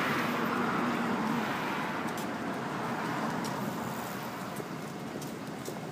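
Road traffic going past close by: a passing vehicle fades away over the first couple of seconds, leaving a steadier traffic noise.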